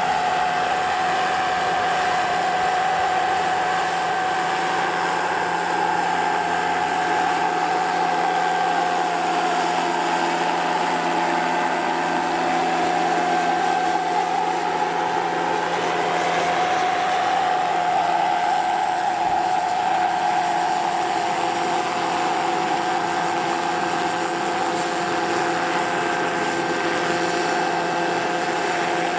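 Jetcat PHT3 gas turbine of a large scale RC model helicopter running steadily with a high whine, together with the rotor noise, as the model hovers low. Midway the sound briefly rises and falls in pitch.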